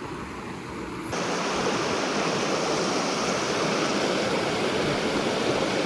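Rushing water of a mountain stream, a steady hiss that jumps suddenly louder about a second in.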